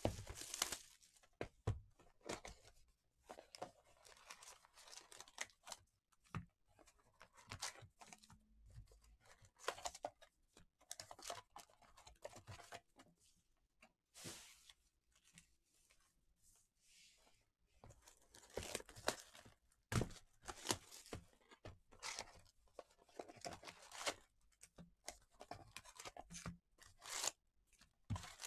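Packaging of a sealed box of baseball trading cards being torn open and the packs inside handled: short, irregular bursts of tearing and crinkling, with quiet gaps between.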